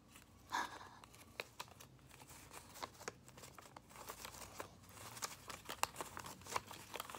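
Paper dollar bills rustling and crinkling as a folded wad is unrolled and the notes are leafed through by hand: soft, irregular rustles with a louder crinkle about half a second in.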